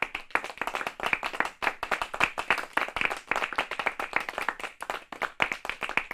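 Applause: a group of people clapping, with many quick, irregular claps.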